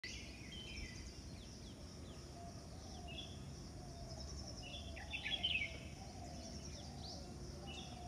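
Several birds chirping and trilling over a steady low background rumble, with a quick run of louder chirps about five seconds in and a fainter, lower call wavering along behind them.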